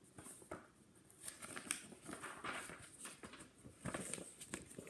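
Pages of a picture book being turned and handled: faint paper rustling with scattered soft clicks and taps.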